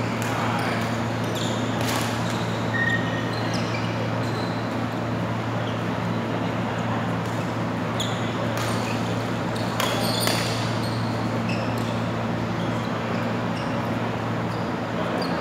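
Badminton rackets striking a shuttlecock during doubles rallies, a scattering of sharp hits with the strongest around two seconds in and between about eight and ten seconds in, over a steady low hum.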